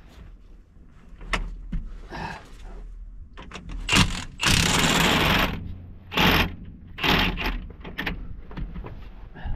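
Hand-tool work among the hydraulic hoses and fittings of a Cat 320C excavator: scattered clicks, knocks and rustles, with a loud rushing burst a little over a second long about halfway through.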